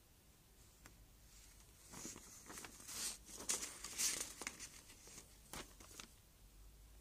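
Paper rustling and crinkling as a hand turns a page of a printed paper booklet, starting about two seconds in and fading out by about six seconds.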